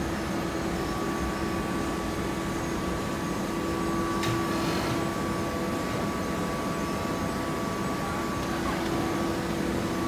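Full-automatic horizontal hydraulic baler running, a steady machine hum on one low tone with a fainter higher whine above it, and a single short clank a little over four seconds in.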